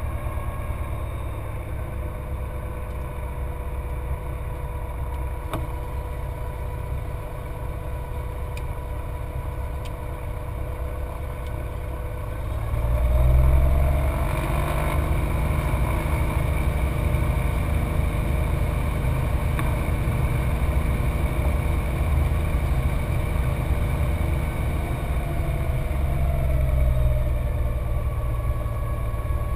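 Cessna 182's piston engine and propeller running at low power during taxi, heard from inside the cockpit. About thirteen seconds in, the power comes up and the engine note rises and grows louder, then holds steady.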